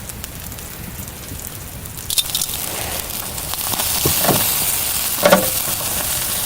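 Meat sizzling on a grill, the sizzle growing louder from about two seconds in. A few sharp clicks and short knocks sound over it.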